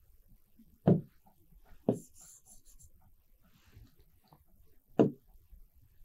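Three short, dull taps of a stylus on a touchscreen display as menu items are picked: about a second in, a second later, and again about five seconds in.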